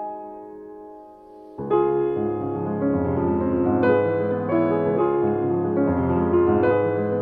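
Instrumental piano music. A held chord dies away, then about a second and a half in a louder, fuller passage with low bass notes begins.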